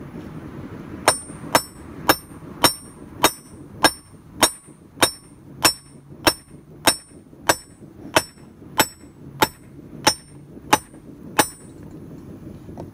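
A 3-pound hand hammer forging a hot railroad spike on a steel anvil: about eighteen even blows, a little under two a second, each with a bright metallic ring. They start about a second in and stop shortly before the end.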